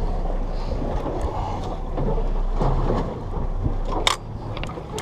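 Wind buffeting the microphone over a steady wash of water around a small boat's hull, with a sharp click about four seconds in.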